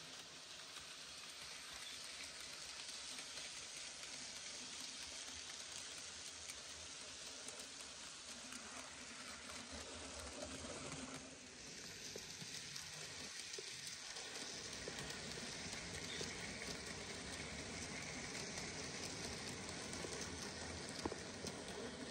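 N gauge model train running along its track: a faint, steady rolling hiss that grows a little louder toward the end as the wagons pass close.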